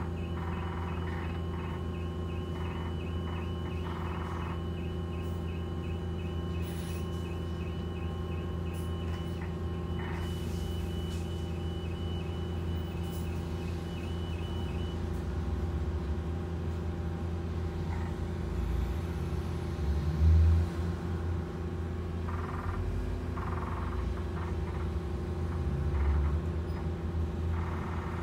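Cabin sound on the upper deck of a Wrightbus StreetDeck Hydroliner hydrogen fuel-cell double-decker bus: a steady low drone and hum from the bus's running machinery. For about the first fifteen seconds a regular high-pitched ticking runs over it. A low thump comes about twenty seconds in, the loudest moment, and a weaker one near the end.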